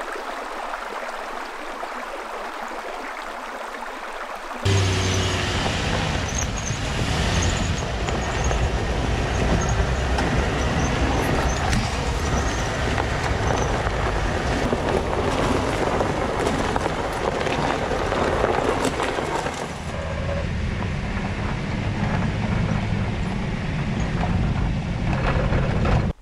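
A shallow creek trickling over stones. About four and a half seconds in it gives way to a Chevy Silverado pickup driving a rocky dirt trail: engine rumble with tyres rolling and knocking over rock and gravel.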